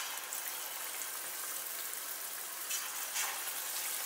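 Batter-coated chicken strips sizzling in hot oil in a frying pan: a steady hiss that swells briefly twice near the end.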